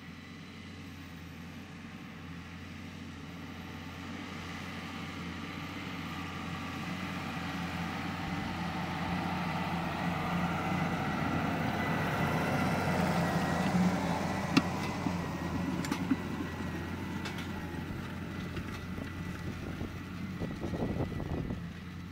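Case IH 5150 Maxxum tractor's six-cylinder turbo diesel engine running steadily under load while pulling an offset disc harrow, with a steady high whine alongside. It grows louder as the tractor approaches, is loudest as it passes a little past halfway, and then fades as it pulls away. A couple of sharp clicks come just after the pass.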